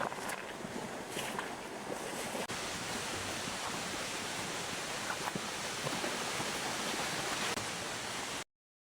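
Steady rushing noise, like open-air wind or surf, with a few faint ticks, cutting off abruptly near the end.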